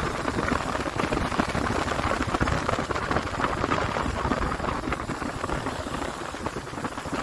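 Steady road and wind noise of a vehicle driving on a rain-wet road, with a crackly hiss of tyres on the wet surface, easing slightly toward the end.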